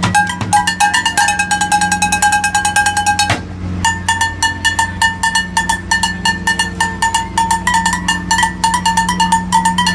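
Street drumming with sticks on upturned plastic water-cooler jugs, wooden bar-stool seats and metal dog pans: fast, dense strokes, with the pans ringing out clear pitched tones. The playing breaks off briefly about three and a half seconds in, then resumes, over a steady low hum.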